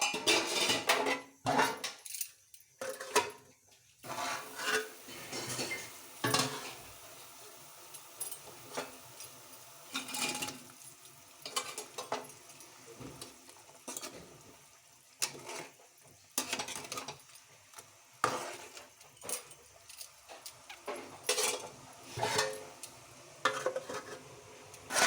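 Metal spoon stirring in a cooking pan, with irregular clinks, knocks and scrapes against the pan.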